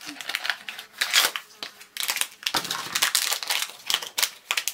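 Packaging crinkling and rustling in quick irregular scrunches as a small mystery pin box and the blind bag inside it are torn open by hand.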